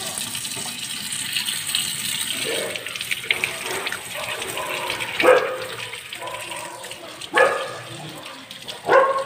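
Tap water running steadily into a stainless-steel sink and splashing over hands rinsing a radish and its leaves. Over it come five short, loud cries, the loudest from about five seconds in.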